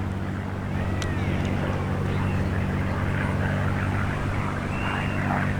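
Propeller drone of a V-12 piston-engined WWII fighter flying a display, a steady low engine note.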